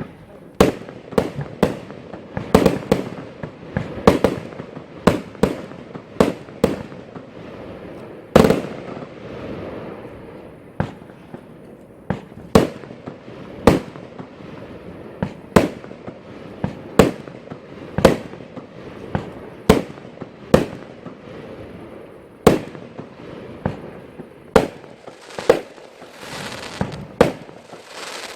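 Category F2 consumer fireworks going off: a long run of sharp bangs, about one or two a second, with crackling between them.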